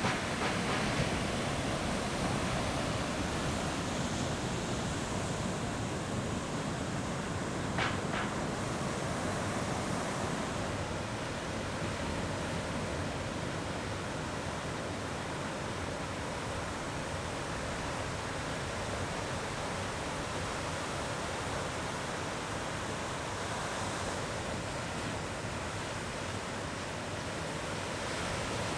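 Steady rushing noise of ocean surf breaking, mixed with wind, and one brief click about eight seconds in.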